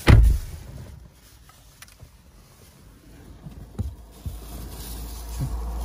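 A sharp thump at the start, then low engine and road rumble inside a moving car's cabin, growing from about halfway through, with a few faint clicks.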